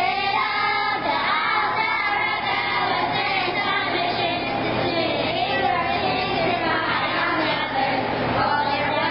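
A choir of young girls singing together, with long held notes.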